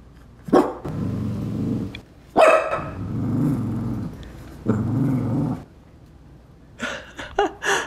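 Shih Tzu growling at a toy: three long growls of a second or more, each starting sharply, then a quick run of short barks near the end.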